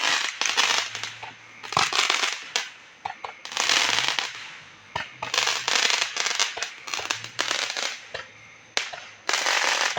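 Fireworks going off in a string of separate bursts, each a rushing crackle lasting under a second.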